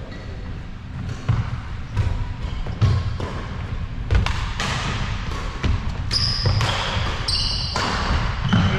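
Badminton doubles rally on a wooden sports-hall floor: sharp racket hits on the shuttlecock and thudding footfalls, with two short high shoe squeaks about six and seven seconds in.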